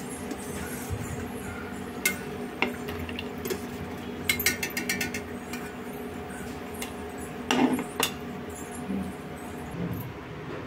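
Steel slotted spoon clinking and knocking against a pan of frying oil and a plate as fried pakodas are lifted out. Scattered sharp clinks, a quick run of rattling clinks about four seconds in, and two louder knocks near eight seconds.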